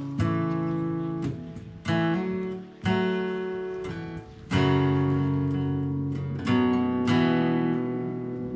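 Acoustic guitar music: slow chords strummed about every one to two seconds, each left to ring and fade before the next.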